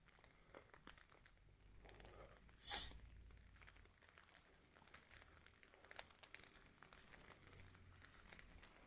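Faint rustling and small crackles of footsteps through tall grass, with one loud, brief swish nearly three seconds in.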